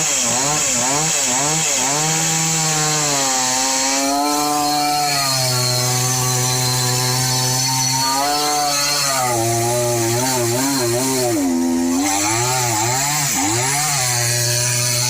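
Chainsaw running at high revs while cutting into a tree trunk, its engine pitch wavering up and down and dipping briefly several times as the chain works through the wood.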